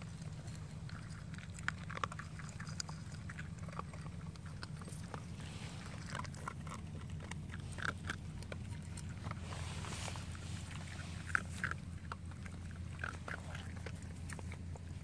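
Puppies eating dry kibble: irregular, scattered crunches and chewing, eating noisily. A steady low hum runs underneath.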